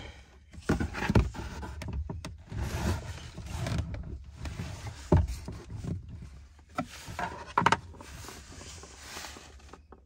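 Plastic clicks, knocks and rubbing from hands working on a Hyundai Avante AD's glove box, turning its side stoppers to release it, with several sharper knocks among the irregular handling noise.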